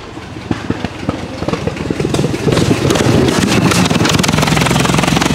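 1911 Fiat S76's 28.4-litre four-cylinder engine running with a rapid, uneven beat of exhaust firing, getting louder as the car comes closer and passes, flames spitting from its exhaust ports.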